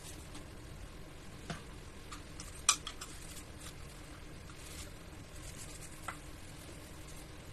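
A few sharp, short clicks and taps of kitchen containers being handled on a countertop, the loudest a little under three seconds in, over a low steady room hum.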